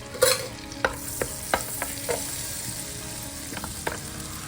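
Whole spices sizzling in hot butter and olive oil, with a utensil stirring and clicking against the vessel several times.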